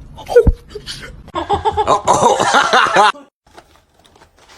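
A person laughing hard in quick repeated bursts for nearly two seconds, cutting off abruptly, after a short thump about half a second in.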